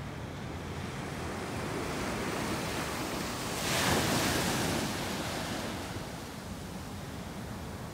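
Small waves breaking and washing up a sandy beach, one wave's hiss swelling about halfway through and then fading. Wind rumbles on the microphone throughout.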